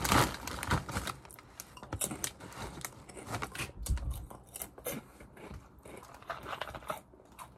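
Foil snack bag crinkling as a hand reaches in, loudest in the first second, then a crisp potato snack being crunched and chewed with irregular sharp crunches.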